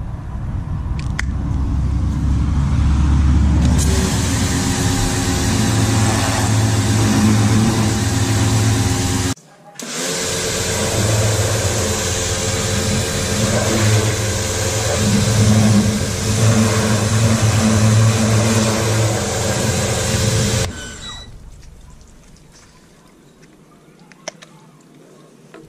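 Michelin MPX 14E electric pressure washer running, its motor humming under the loud hiss of the high-pressure jet from a rotary nozzle spraying a car. The spray stops about twenty seconds in, leaving a few faint clicks.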